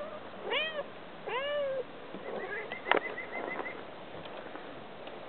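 Domestic cat meowing twice, each meow rising then falling, asking to be let back into the house. About three seconds in comes a sharp tap, around a quick run of high chirps.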